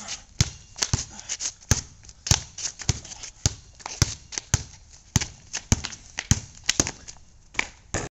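Red rubber playground ball dribbled on a concrete sidewalk, bouncing repeatedly with sharp smacks about twice a second.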